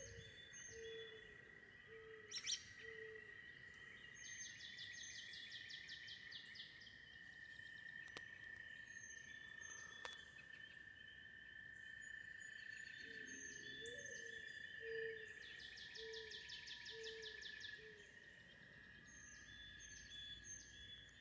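Faint morning birdsong: birds calling, with a rapid high trill heard twice and two runs of short, low, evenly spaced notes, over a steady thin high-pitched tone.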